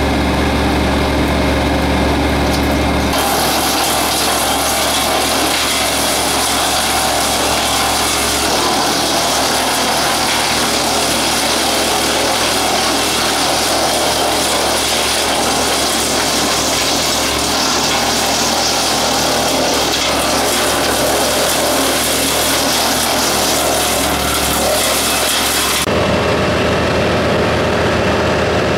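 Tractor-driven WoodMaxx WM-8M 8-inch PTO wood chipper running steadily. About three seconds in, a loud, rough grinding of wood being fed and chipped takes over. Near the end it drops back to the machine running.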